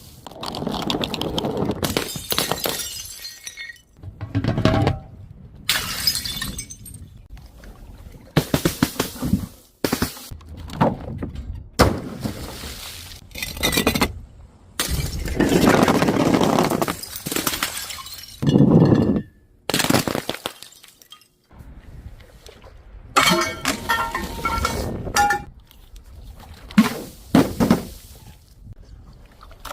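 Glass bottles shattering one after another, over a dozen separate smashes, each a sharp crash followed by the tinkle of falling shards.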